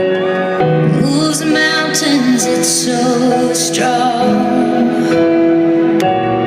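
Trance music: sustained synth chords under a wavering female vocal line.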